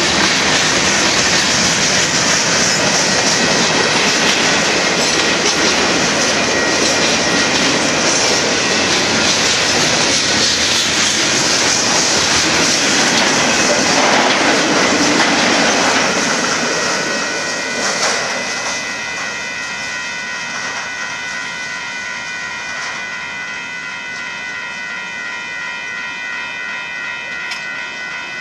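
Freight cars of a Union Pacific manifest train rolling past a grade crossing, with wheels clattering over the rail joints and some wheel squeal. The sound is loud at first and drops off about halfway through as the last cars clear. Then a steady ringing is left, which fits the grade-crossing bell that still sounds while the signals flash.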